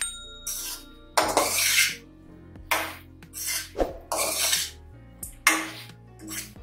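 Metal spatula scraping and stirring around an aluminium kadai full of saucy fried egg pieces, about seven rasping strokes a second or so apart, over soft background music.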